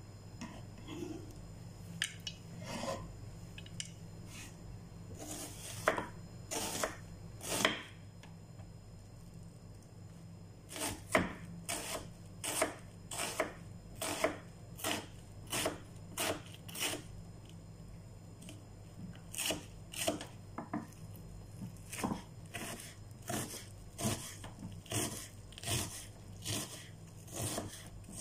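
Kitchen knife chopping a red onion on a wooden cutting board: a few uneven cuts at first, then steady chopping at about two strokes a second, broken by two short pauses.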